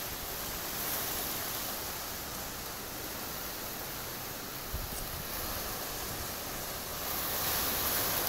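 Strong wind hissing through palm fronds as a steady rush, swelling in a gust near the end, with a brief buffet of wind on the microphone about five seconds in.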